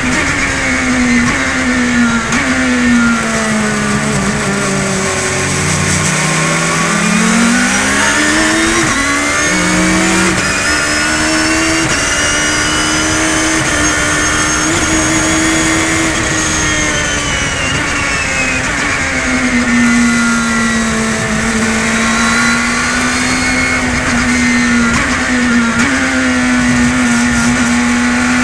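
Four-cylinder race car engine running hard on track, its pitch falling with downshifts early on, then climbing in one long pull before easing off and holding steady.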